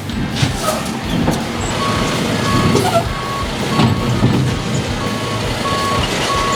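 A truck's back-up alarm beeping, starting about two seconds in, with short even beeps repeating about every two-thirds of a second over the truck's running engine.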